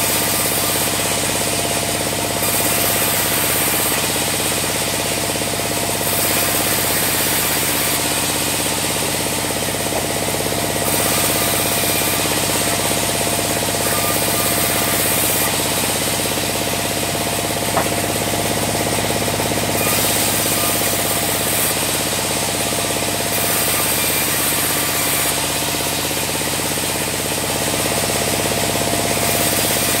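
Sawmill bandsaw running steadily and sawing sengon (albizia) logs: a steady machine drone with a high blade hiss that swells and eases every couple of seconds. One sharp knock comes a little past halfway.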